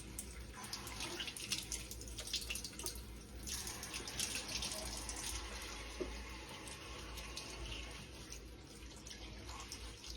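Water running, a steady hiss with many faint ticks and drips.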